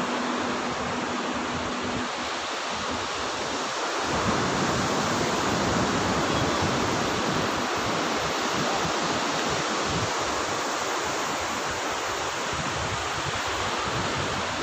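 Sea surf breaking and washing up a sandy beach: a steady rushing noise that swells a little a few seconds in. A faint steady hum stops about two seconds in.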